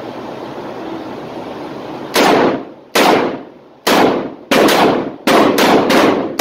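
A stainless .357 Magnum revolver fired quickly with full-power hollow-point defensive loads: about seven shots in under four seconds, each echoing off the walls of an indoor range. Before the first shot there are about two seconds of steady background hiss.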